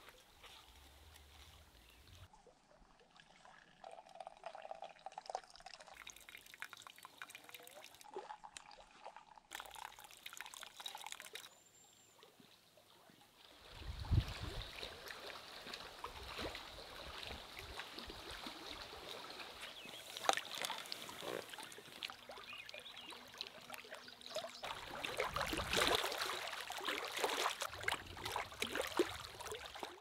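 Camp breakfast being made in metal cookware: a spoon stirring and scraping oatmeal in a small metal pot, and liquid poured into a metal mug and stirred. Louder from about halfway, with sharp clinks of spoon on metal.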